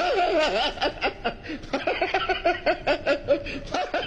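A man laughing heartily: a long run of short, quick 'ha' pulses, about four or five a second.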